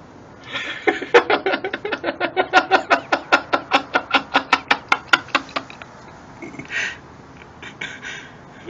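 Shiba Inu at a glass door making a fast, even run of short squeaky sounds, about six or seven a second, for about five seconds, then a few fainter ones near the end.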